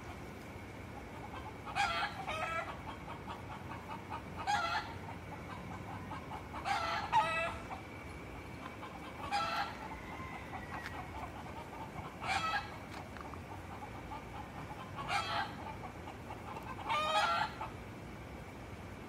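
Roosters calling over and over: seven short, loud calls spaced about two to three seconds apart.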